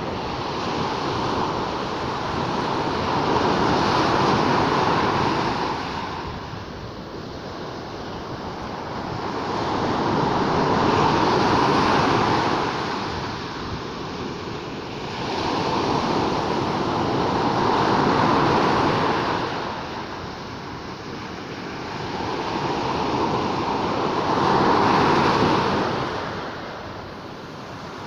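Sea waves breaking and washing in, the surf swelling and falling back in slow surges about every seven seconds, four times over.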